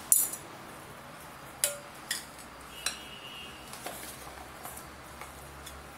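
A plastic spatula clinking and tapping against a glass mixing bowl and a foil serving plate while chaat is scooped from one to the other: scattered clinks, the loudest right at the start, one about three seconds in ringing briefly.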